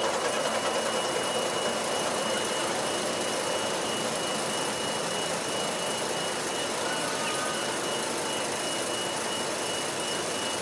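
Milky Way twin roller coaster, one standing and one sitting train side by side, climbing the lift hill: a steady rushing mechanical noise with a faint high whine held throughout.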